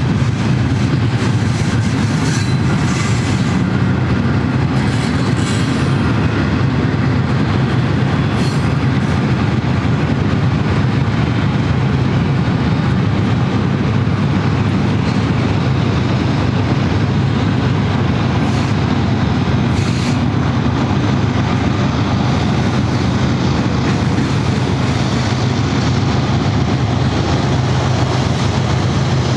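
Double-stack container freight train rolling past: a steady low rumble from the cars and the rear pair of BNSF GE distributed-power diesel locomotives as they draw near, with a few wheel clicks over the rail. A faint high squeal sounds for a few seconds near the end.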